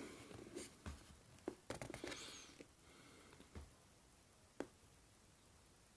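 Near silence with a few faint taps and light rustles from a cardboard box being handled and turned over.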